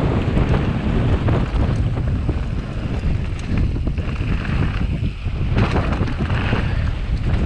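Wind buffeting the action camera's microphone as a mountain bike descends fast, with a steady rumble and rattling knocks from the tyres and frame over grass and a rough dirt trail.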